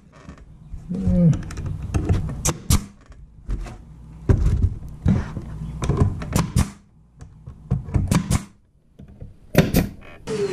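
A nail gun driving nails into plywood boards: a series of sharp shots, often two in quick succession, with knocks of the boards being handled in between.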